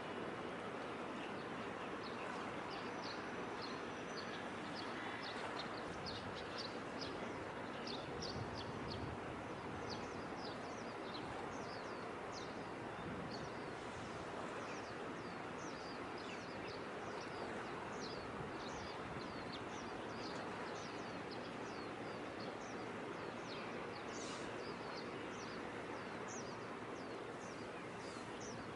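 Small birds chirping, many short high calls a few times a second, over a steady background noise.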